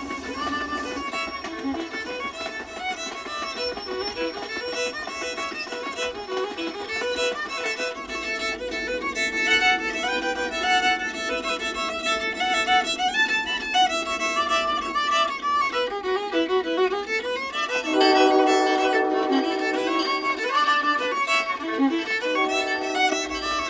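Violin music: a bowed melody with quick runs up and down. About 18 seconds in it turns to lower, held notes and grows louder.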